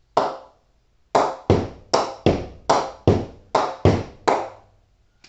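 A ball bounced repeatedly on the face of an SG Sunny Tonny Xtreme willow cricket bat, a ping test of the bat. Each hit gives a sharp ping with a short ring: one hit, then nine more in quick succession at two to three a second.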